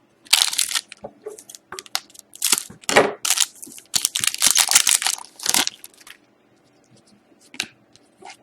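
Crinkling and crumpling of a trading-card pack's wrapper being handled, in dense bursts for about six seconds, then a single click near the end.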